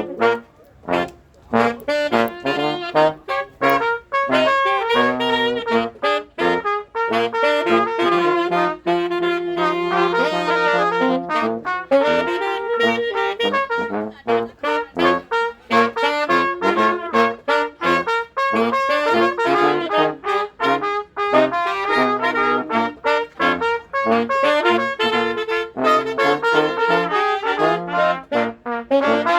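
A small group of brass players jamming a tune together, several horns playing moving melodic lines over one another with no pauses.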